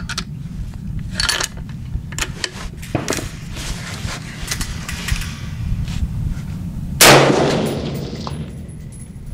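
A single shot from a Savage 111 bolt-action rifle in .30-06, a loud sudden crack about seven seconds in that dies away over a second or so, preceded by a few light clicks and knocks.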